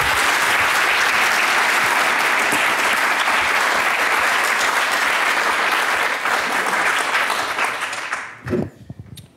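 Audience applauding: steady, dense clapping that dies away about eight seconds in.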